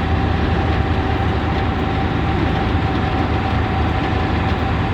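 2004 Blue Bird school bus cruising at highway speed, heard from inside: a steady engine drone and road rumble with a constant mid-pitched whine.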